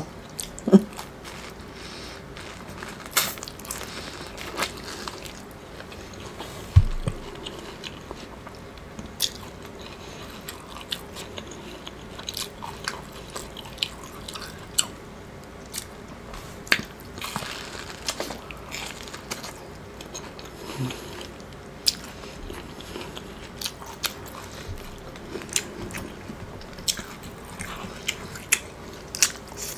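Biting kernels off a cob of Mexican street corn (elote) and chewing them: irregular crisp clicks throughout, with a dull thump about seven seconds in.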